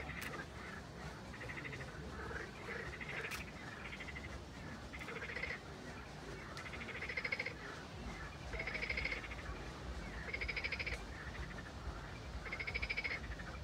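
Frogs calling from the water: trilled croaks about a second long, repeated every one to two seconds, growing more regular and louder in the second half.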